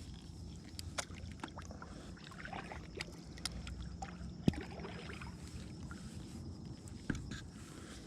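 Sounds of a kayak on the water: scattered light clicks and knocks against the hull over a low steady rumble, with a sharper knock about four and a half seconds in and another near seven seconds.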